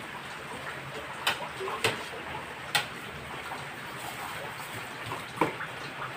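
A metal spoon clinking four times against a stainless-steel tray and mixing bowl while scooping gelatin cubes, over a steady background hiss.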